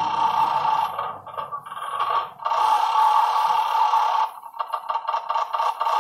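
Electronic sound from a Mario roulette gambling machine: a steady, high two-note electronic tone, broken up for about a second, then chopped into a rapid run of short beeps over the last second and a half.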